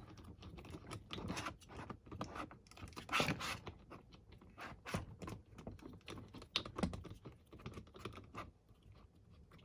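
Faint, irregular small clicks and light scrapes of a metal hex key and knurled knob being worked tight on a Profoto B10 flash's tilt bracket.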